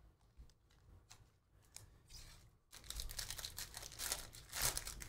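Foil wrapper of a Panini Prizm football hobby pack being torn open by hand, crinkling and tearing, starting about three seconds in after a few faint ticks.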